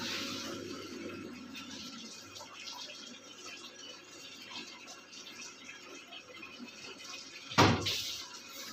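Water running during a machine wash of clothes, with one sharp knock about three-quarters of the way through.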